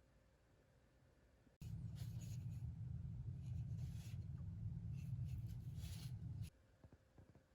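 Restored keyhole saw cutting into wood: a few irregular scratchy strokes over a low rumble, starting abruptly about a second and a half in and stopping abruptly near the end.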